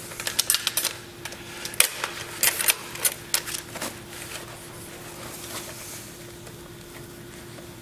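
Light metallic clicks and clinks as a steel coil seat spring, its nut and a wrench are handled and the wrench is fitted to the nut. There is a quick cluster of clicks over the first four seconds or so, then it goes quiet apart from a faint steady hum.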